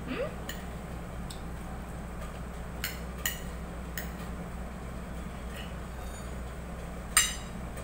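Scattered sharp clinks of a fork and spoon against a plate, a few in the middle and the loudest just before the end, over a steady low hum.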